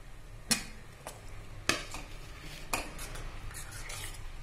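A steel ladle clinking against a stainless steel kadai while stirring sambar: four sharp clinks in the first three seconds.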